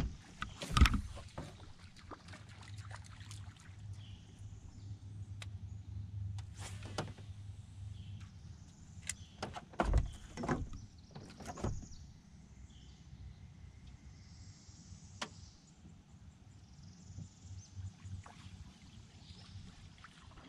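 Angler working a topwater lure from a small fishing boat: scattered knocks and clicks, the loudest about a second in and again about ten seconds in, over a low hum that fades after about eight seconds.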